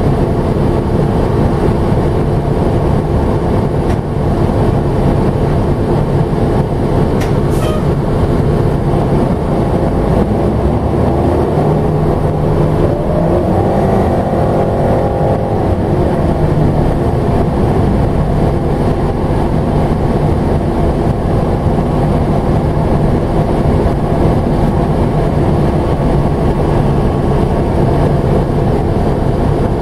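Third-generation New York City Transit bus 3996 running on the road, heard from on board: a steady rumble of engine and road noise. About twelve seconds in, a whine rises in pitch, holds briefly, and fades out a few seconds later.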